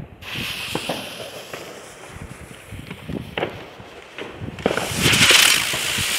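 Xplode Super Bee spinning flying firework ('Sonnenvogel') lit and taking off: a hissing whirr as it spins up into the air, then about four and a half seconds in a loud crackling, fizzing burst as its end effect goes off.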